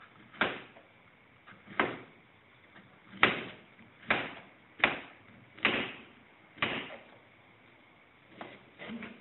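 Kitchen knife slicing round green Thai eggplant on a plastic cutting board. The blade knocks sharply on the board seven times, roughly once a second, then a few fainter cuts follow near the end.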